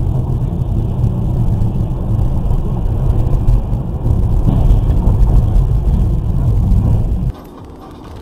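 Steady low road and engine rumble inside a moving car, picked up by a dashcam on a snowy highway. About seven seconds in it cuts off suddenly to a much quieter, steady road noise.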